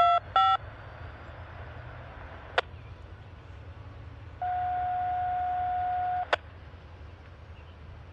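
Railroad scanner radio: a few short beeping tone bursts right at the start, a click about two and a half seconds in, then a steady beep tone held for about two seconds that ends in a click, over a low steady rumble.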